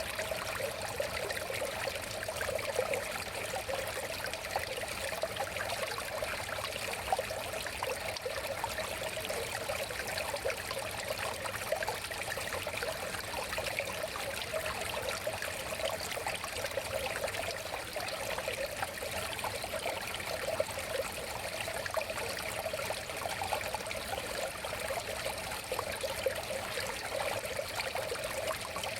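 River water flowing steadily, with a continuous babbling and trickling over stones.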